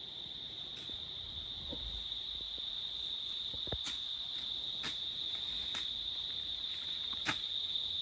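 Insects shrilling together on one steady high pitch without a break, with a few faint clicks scattered through it.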